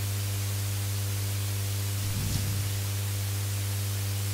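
Steady electrical mains hum with constant hiss in the lecture's microphone recording, with a brief faint mumble about two seconds in.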